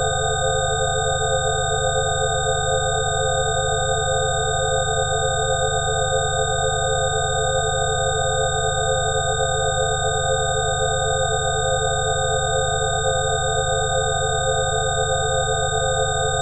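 Electronic 'healing frequency' tones: several steady pure tones held unchanged over a low hum with a fast flutter in it, a continuous drone that neither starts nor stops.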